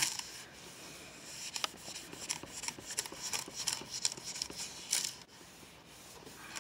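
A hand rubbing and smoothing a sheet of paper pressed onto a gel printing plate: a soft, scratchy paper rustle broken by many small crackles and ticks.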